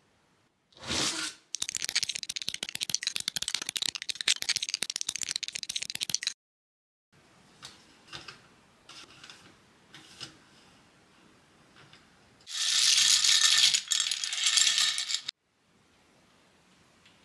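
Loose plastic LEGO pieces rattling and clattering inside a LEGO Technic frame cage, a model gabion being filled. A dense rattle lasts about five seconds, then come a few separate clicks, then another loud rattle of about three seconds near the end.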